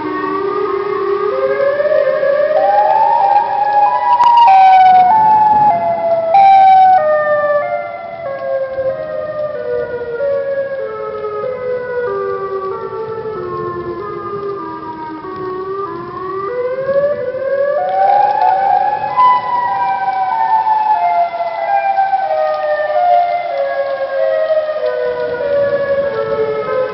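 Loud, siren-like horn blast whose pitch moves in distinct steps: it climbs for the first few seconds, steps slowly downward, climbs again about two-thirds of the way through and steps down again, with overlapping echoes. It is loudest in the first quarter.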